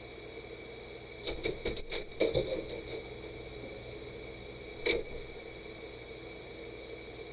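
Clicking at a computer keyboard: a quick run of about eight clicks, then one more click a few seconds later, over a steady high electrical whine.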